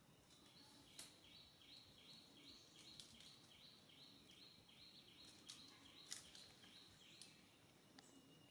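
Faint outdoor background with a high-pitched two-note animal call repeated about twice a second, and a few soft clicks.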